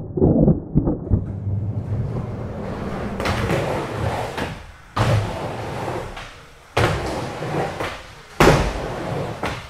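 Skateboard wheels rolling on concrete, with several sharp slams of board impacts, each followed by rolling noise that fades; the slams come about every one and a half to two seconds in the second half, after a few lighter knocks at the start.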